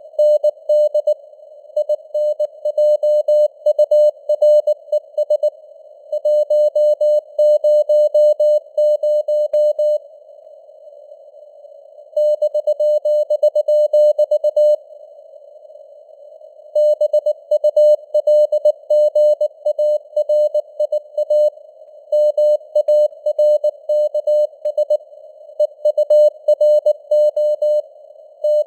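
Morse code sent at 19 words per minute as a keyed, steady-pitched beep: quick runs of dots and dashes, broken by longer pauses between words. A faint band of simulated radio hiss sits under the tone.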